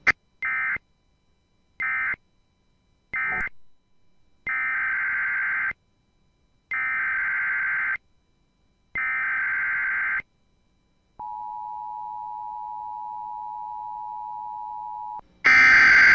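Emergency Alert System signalling: three short buzzy bursts of SAME digital data, the end-of-message code, then three bursts of about a second each carrying the next alert's SAME header, then the steady two-tone EAS attention signal held for about four seconds. A louder burst follows near the end.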